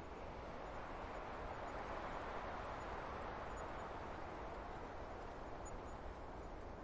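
Soft wind blowing through a snowy forest as a steady hiss, swelling about two seconds in and easing off again.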